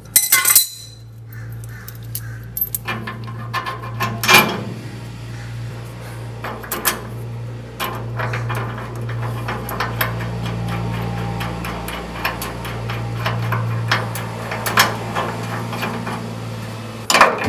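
Metal clinks and sharp knocks as a bolt is fitted through a rusty steel rotisserie mounting bracket, with the loudest knocks about four seconds in and near the end. A steady low hum runs underneath.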